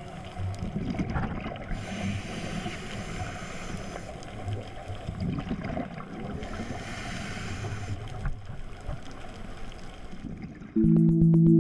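Muffled underwater noise picked up through a diving camera's housing, with a diver's exhaled regulator bubbles swelling twice. Synthesizer music starts suddenly near the end.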